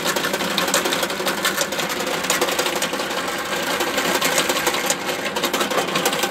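Bench drill press running, its bit cutting through a carbon-fibre model-glider wing to bore the core hole for a screw thread. Steady motor hum with a fast, even rattle from the cutting.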